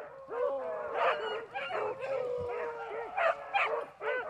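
A pack of beagles baying in the brush: many voices overlapping in short yelps and drawn-out howls. The hounds are running a rabbit on its trail.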